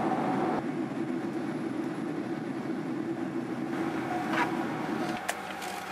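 Steady drone of an airliner cabin in the climb after takeoff: jet engine and airflow noise heard from inside the aircraft. It drops and changes character about five seconds in.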